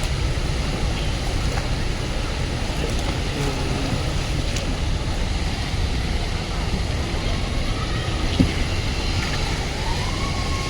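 Steady rushing noise of the waterfall and river water, with one short knock about eight seconds in.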